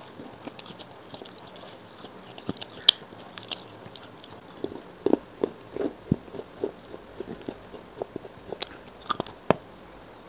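Close-miked biting and chewing of brittle terracotta-coloured clay pot pieces: irregular sharp crunches and clicks. They come thicker in the middle and near the end.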